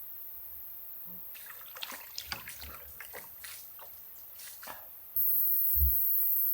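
Water splashing and dripping in a string of irregular splashes. About five seconds in, a steady, much louder high hiss sets in suddenly.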